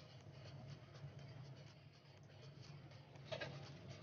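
Faint crackling of pumpkin pancake batter frying in plenty of oil in a nonstick pan: irregular small pops, with a louder flurry of crackles about three seconds in, over a low steady hum.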